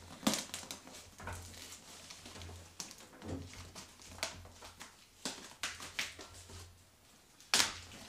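Irregular scraping and scuffing of a plush toy and hands rubbing against a taped cardboard box, with a louder tearing burst near the end as the packing tape gives way and the box flap comes open.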